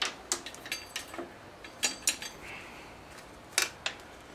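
Scattered metallic clinks and taps from tools and parts being handled on an outboard engine, one of them ringing briefly about a second in.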